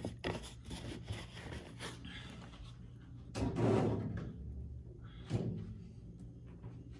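A few small clicks as the plastic cap is screwed onto a glass juice bottle. Then comes a loud thud about halfway through and a lighter knock a couple of seconds later, as the bottle is put away.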